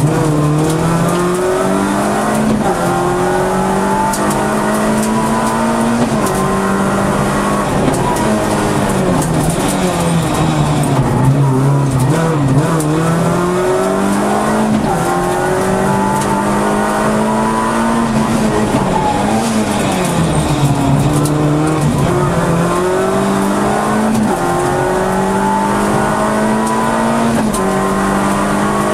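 Peugeot 106 Rallye's four-cylinder engine heard from inside the cabin, revving hard and rising in pitch through the gears, then falling back on each shift and for each corner, over and over.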